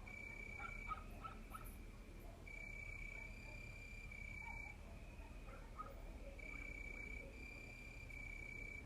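Cricket singing: a steady high-pitched trill in stretches of about a second or less, broken by brief pauses.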